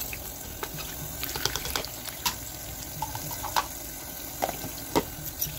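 Water running from a tap, with scattered light clicks and knocks as small items are rinsed under it.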